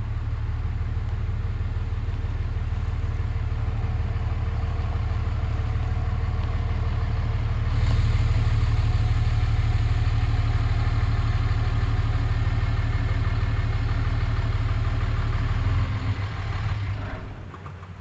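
A vehicle engine running steadily. It grows louder about halfway through and drops away near the end.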